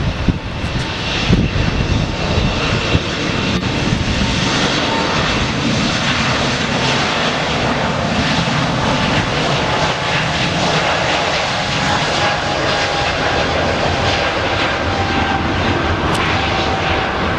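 Airbus A220-300 taking off, its Pratt & Whitney PW1500G geared turbofan engines at take-off power in a steady loud roar. A faint whining tone in it slowly falls in pitch over the later seconds.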